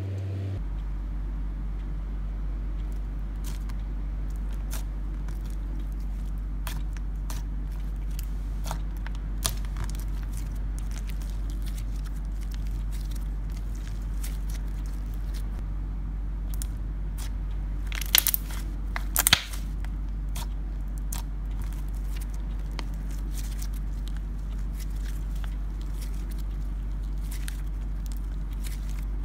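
Slime mixed with green clay being kneaded and stretched by hand, giving scattered small crackles and clicks, with a few louder pops about two-thirds of the way through, over a steady low hum.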